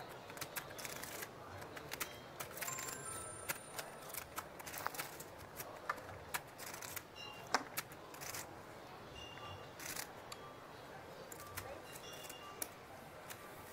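Poker chips clicking as players handle their stacks at the table: many short, sharp clicks at irregular intervals.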